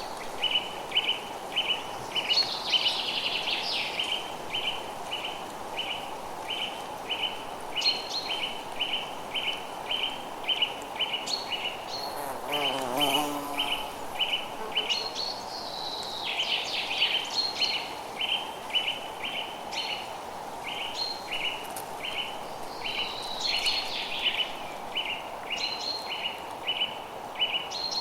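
Forest birds singing: one bird repeats a short chirp evenly, about two to three times a second, while other birds add higher chirps and trills over it, against a steady background hiss.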